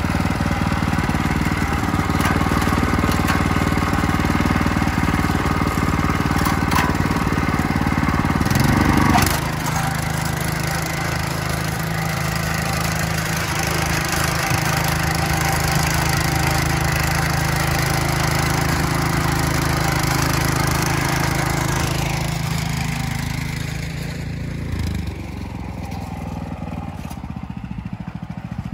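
Engine of a WEIMA WM500 walk-behind tractor running steadily while ploughing. Its note changes about nine seconds in, and it gets quieter near the end.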